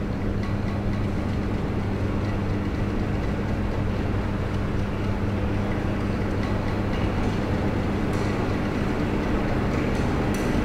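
Launderette washing machines and dryers running: a steady low hum and rumble, with a few faint ticks near the end.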